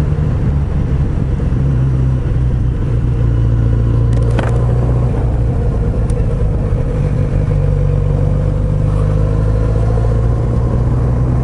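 Kawasaki Z900RS inline-four engine running steadily at low revs, heard close up from the bike's own microphone. A faint brief click comes about four seconds in.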